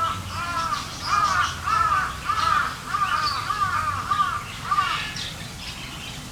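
A crow cawing in a fast run of harsh calls, about two or three a second, that stops about five seconds in.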